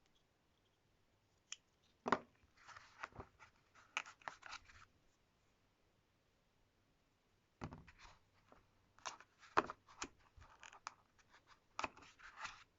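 Unboxing handling noise: bursts of clicks, knocks and scraping rustles as packaging and parts are handled. There are two spells of it with a pause of a couple of seconds between them.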